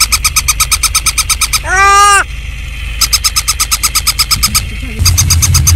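Battery-operated plush toy puppy making electronic animal sounds: fast, even chirping pulses at about ten a second, broken about two seconds in by a single call that rises and falls. A steady low rumble runs underneath and gets louder about five seconds in.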